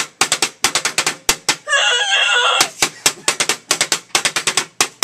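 Metal forks drumming a quick, steady rhythm of sharp clicks on a two-slice toaster used as a percussion instrument. A brief high-pitched squawk cuts in about two seconds in.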